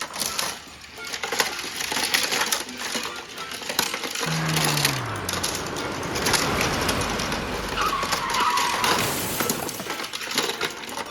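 Added crash sound effects over Tomica die-cast toy cars colliding: a steady clatter of knocks and scraping, with a falling tone about four seconds in and a short wavering tone around eight seconds.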